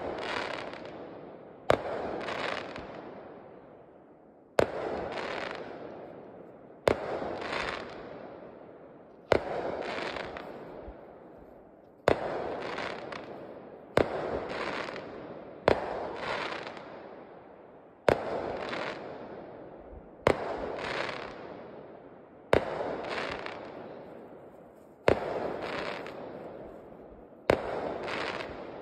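Aerial fireworks bursting one after another, about a dozen sharp bangs spaced two to three seconds apart, each trailing off in a fading rumble.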